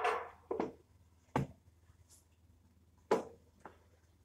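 Four separate sharp knocks and thuds, unevenly spaced, the loudest about three seconds in, as a small folding table is carried and knocked about on a tiled floor.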